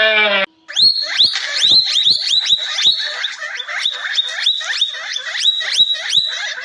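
An animal making a rapid series of high, downward-sweeping chirps, about three or four a second. A short, lower pitched call comes before it and breaks off about half a second in.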